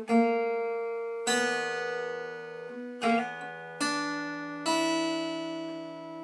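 Guitar playing a slow single-note blues phrase: about five plucked notes roughly a second apart, each left to ring and fade, moving along the G and B strings and ending on the open high E.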